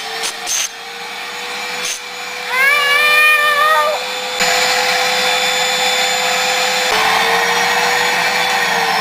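Numatic Henry vacuum cleaner running, its motor giving a steady whine that starts to drop in pitch near the end. About two and a half seconds in there is a short, wavering, meow-like cry, and from about four and a half seconds a louder, even rush of air joins the motor.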